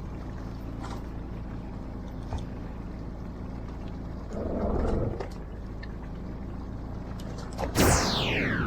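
Steady low hum of a fishing boat's engine idling. About halfway through comes a brief rush of noise. Near the end there is a sudden loud sound followed by a whine that falls quickly in pitch.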